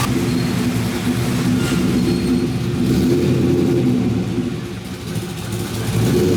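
LS1 5.7-litre V8 in a BMW Z3 running just after a cold start. Its sound rises in the middle, drops off about five seconds in, then picks back up.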